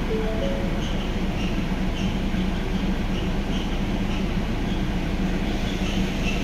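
Ford Ranger 2.2 L diesel engine running at a steady idle, with a faint high tick about twice a second.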